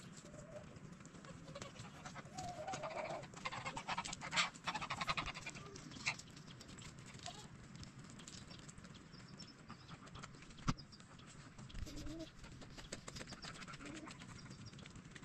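A grazing flock of sheep and goats bleating now and then, with a rasping call a few seconds in, amid scattered small clicks and rustles.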